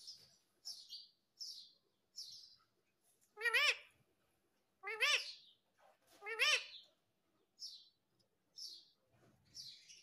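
Rose-ringed (Indian ringneck) parakeet calling: a string of short, high chirps, with three louder calls in the middle that rise and fall in pitch.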